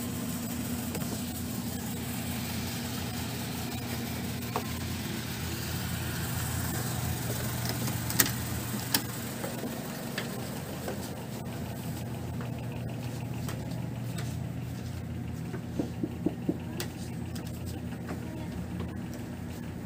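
A steady low mechanical hum, like a motor running, with a couple of sharp clicks about eight and nine seconds in and a quick run of four clicks or knocks near sixteen seconds.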